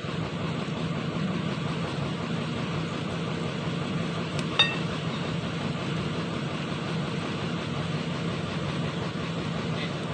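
An engine running steadily at idle, with one sharp metallic clink about four and a half seconds in.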